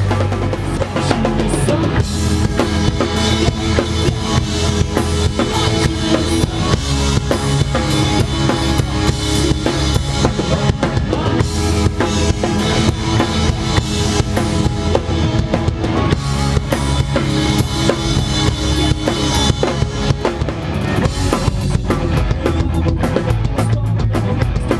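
Rock band playing, with the drum kit's bass drum and snare keeping a steady beat under sustained instrument chords.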